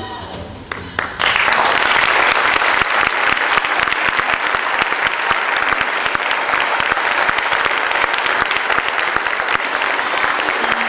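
Audience applauding. The music ends in the first second, and dense clapping breaks out about a second in and carries on steadily.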